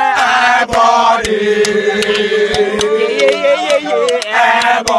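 A group of teenage boys chanting a song loudly together in long, drawn-out notes, with sharp taps scattered through it.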